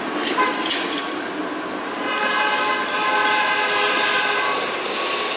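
PCC streetcar running along street track. It gives a few knocks in the first second, then a cluster of steady high whining tones from about two seconds in that eases off near the end.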